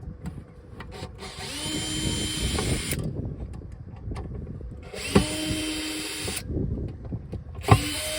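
Cordless drill-driver running in three short bursts of a second or two each, each starting with a rising whine as the motor spins up, with a sharp knock at the start of the second and third, as it drives screws out of a light fitting.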